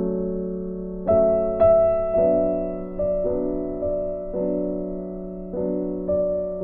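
Gentle background piano music: soft sustained chords with new notes struck about every second.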